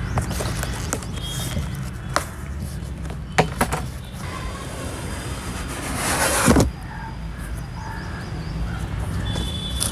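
A cardboard shipping carton being opened by hand: a few sharp clicks and crackles of flaps and tape, then a longer cardboard scrape that swells and cuts off suddenly about six seconds in as the inner product box slides out. A steady low rumble sits underneath.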